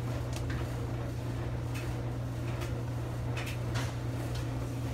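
Front-loading washing machine running a wash: a steady motor hum, with wet laundry tumbling and slapping in the drum in short knocks several times.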